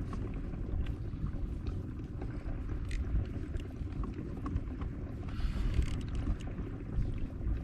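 Wind rumble on the microphone and water moving against a kayak hull, with scattered small clicks and a brief hiss a little over five seconds in.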